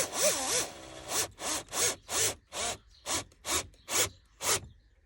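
Rubbing and scraping as a new gear knob and its gaiter are worked onto a VW T5's gear lever: a few squeaky rising-and-falling rubs at first, then a run of short rhythmic strokes, about three a second, that stop near the end.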